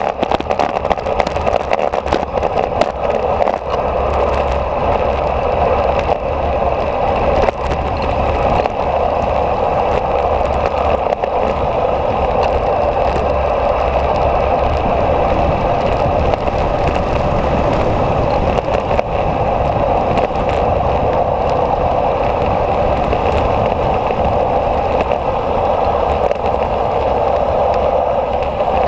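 Steady rush of wind and road noise from a vehicle moving down a mountain road, with wind buffeting the microphone as a low, fluttering rumble.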